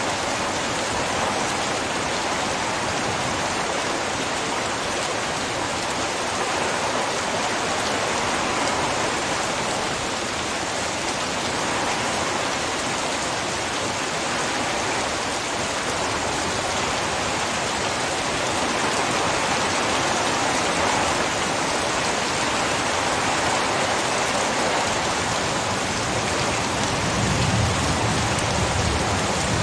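Heavy rain falling steadily, a dense even patter with a brief low rumble near the end.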